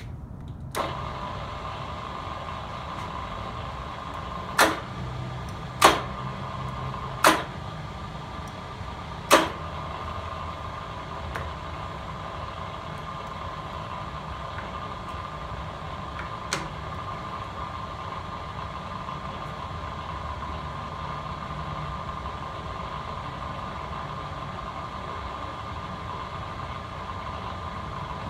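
Solberga SE-1235 24-inch single-spindle drill press with a 3 hp, 220 V three-phase motor, switched on about a second in and then running steadily: an even hum with a high whine. Four sharp metal clunks come between about five and nine seconds in, and a lighter one follows later.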